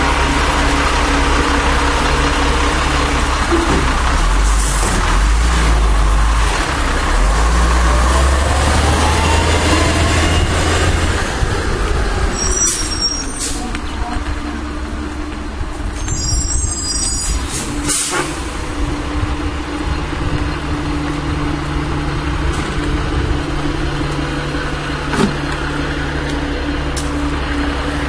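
1996 Volvo WX64 garbage truck's engine running hard for the first dozen seconds, with a rising whine near the end of that stretch, then settling to a steady idle. A few short air hisses, typical of the air brakes, come around the middle.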